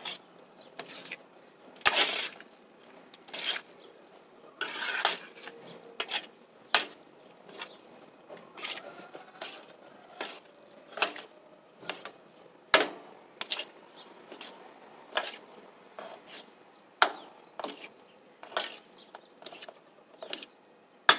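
Utensils scraping and tapping against a plastic tub in irregular short strokes, a few of them sharper and louder.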